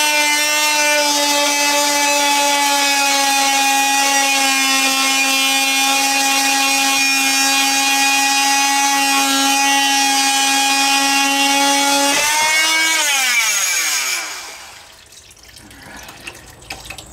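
Corded oscillating multi-tool running with a steady, high whine as its blade cuts through a water heater's supply pipe. About twelve seconds in it is switched off and winds down in falling pitch, and a few quieter handling sounds follow.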